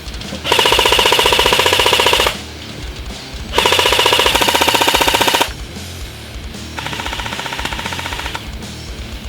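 Echo 1 Red Star LMG airsoft electric gun (AEG) firing three full-auto bursts, each a rapid buzzing rattle of the motor and gearbox cycling, about two seconds long; the third burst is quieter.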